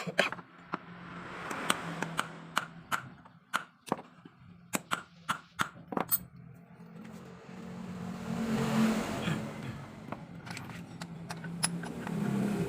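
Electric hand grinder: sharp irregular taps over the first half, then its motor hum swells up around the middle and again near the end.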